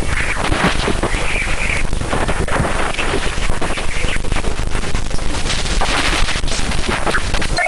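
Radio emissions from Jupiter's moon Ganymede, picked up by the Galileo probe and turned into sound: a dense crackling hiss with rushing surges every second or two.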